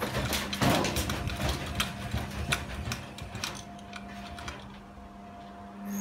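Front-loading washing machine running, its motor humming steadily while the out-of-balance machine rattles and knocks as it rocks on a trampoline. The knocking thins out after about three and a half seconds and picks up again near the end.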